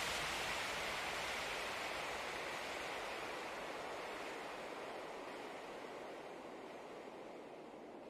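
Steady rushing noise of water, fading out slowly.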